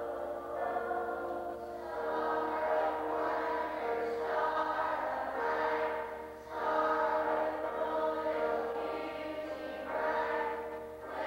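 Church choir singing in long held phrases, with short pauses between them.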